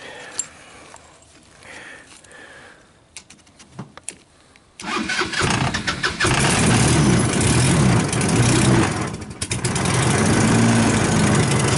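A few faint clicks, then about five seconds in the electric starter cranks the Sunl Alias go-kart's 150cc engine. It catches within a second or so and keeps running steadily, dipping briefly once before settling.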